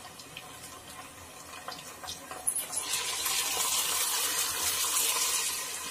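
Ginger-garlic paste frying in hot oil, stirred with a wooden spatula. A few light crackles give way to a steady sizzle that grows louder about three seconds in, as the paste spreads through the oil. The paste is being fried just until its raw edge is gone.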